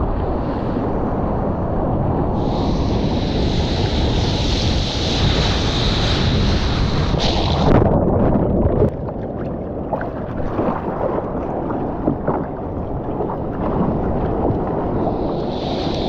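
Sea water rushing and splashing around a surfboard-mounted camera, with wind noise on the microphone. From a couple of seconds in there is a loud hiss of churning white water. About nine seconds in the sound turns muffled and crackly with bubbles while the camera is under the water, and near the end comes a short hiss of spray.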